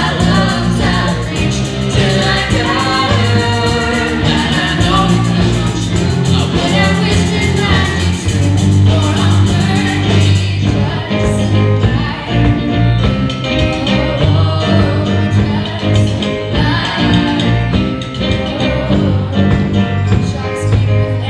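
A rock band plays live, with drums and electric guitar under sung vocals.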